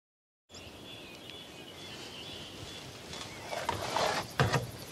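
Outdoor ambience with small birds chirping starts about half a second in, after dead silence. From about three and a half seconds in come rustling and several knocks as a man moves about in the cab of an old truck, the loudest knock near the end.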